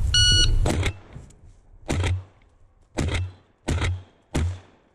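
Five shots from a 12-gauge shotgun loaded with birdshot, fired in quick succession, the gaps shortening from about a second to under one. They are heard close up from a GoPro mounted under the barrel. A short, high, steady tone sounds just before the first shot.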